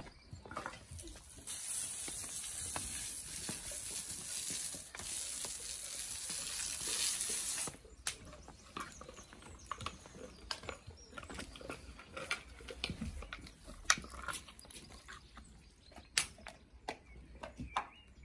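A steady hiss runs for about six seconds and stops abruptly. Then a fire in a newly built brick fireplace crackles, with scattered sharp cracks. The owner can't place these cracks and suspects the bricks are cracking from the heat.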